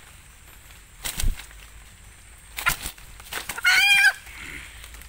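Female red junglefowl caught in a snare, struggling: two short bursts of flapping and rustling, then one loud, harsh squawk about four seconds in.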